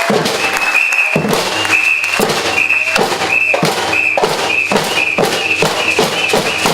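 Batucada percussion band playing: a shrill whistle blown in short blasts about twice a second over steady drum strikes.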